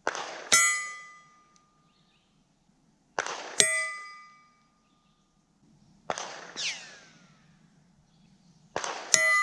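Four .22 LR shots from a Ruger 10/22 arriving at a steel gong, about three seconds apart. Each is a softer distant crack followed about half a second later by a sharp metallic strike. The first, second and fourth strikes set the steel gong ringing with a clear tone that fades over about a second; the third gives a falling whine instead of a ring.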